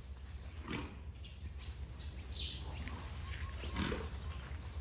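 Young Asian elephants giving short calls, about a second in and again near the end, over a steady low hum.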